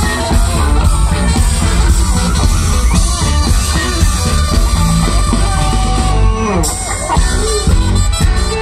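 Live band playing amplified music with electric guitars and a drum kit through a stage PA, heard loud from among the audience.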